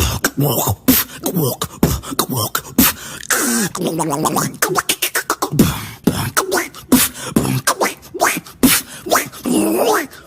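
A person beatboxing: rapid mouth-made percussive hits and clicks mixed with short gliding, pitched vocal effects.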